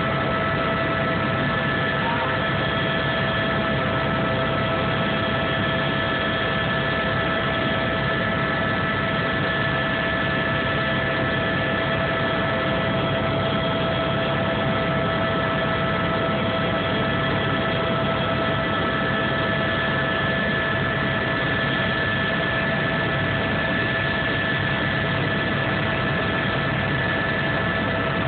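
Helicopter in flight heard from inside the cabin: a steady engine and rotor drone with several constant whining tones over it.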